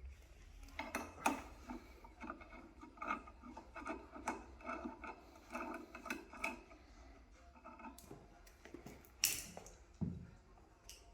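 Hex key turning out the pedal-mount hex screws: a faint run of small scraping clicks, about two a second, with a couple of louder knocks near the end.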